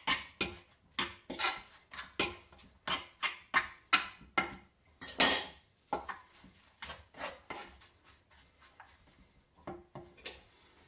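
Wooden spoon scraping and knocking round a wooden bowl as a wet breadcrumb stuffing is mixed, about two strokes a second. One louder scrape comes about five seconds in, and after about six seconds the strokes grow fewer and fainter.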